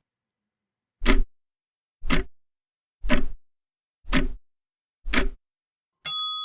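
Countdown timer sound effect: five clock ticks a second apart, then a bell ding near the end that rings on and fades, marking time up.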